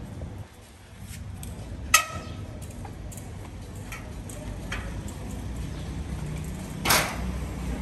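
Metal clanks and knocks from a motorcycle being rolled off its steel shipping-crate rails: a sharp clank that rings briefly about two seconds in, and a heavier clunk near the end, over a steady low rumble.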